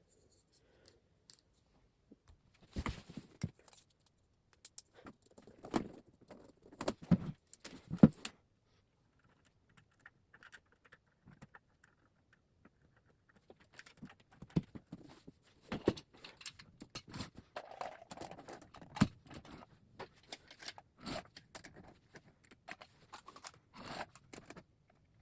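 Handling noises of a model train set being connected up: scattered clicks, taps and scrapes of plastic and metal parts and wires. The noises come in a few short clusters at first and grow busier in the second half.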